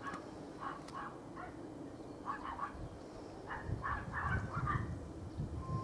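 Dog barking: a dozen or so sharp barks in short quick runs.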